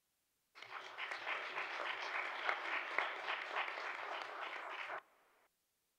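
A room of people applauding after a speech, starting about half a second in and cutting off suddenly about five seconds in.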